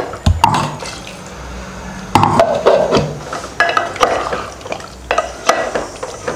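Chicken curry being stirred with a wooden spatula in a metal pot just after water has been added: irregular liquid sloshing and swishing, with several sharp knocks of the spatula against the pot.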